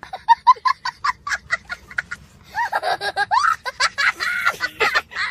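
High-pitched laughter, a comic laugh sound effect: a quick run of short giggles, then longer, higher laughs from about halfway through.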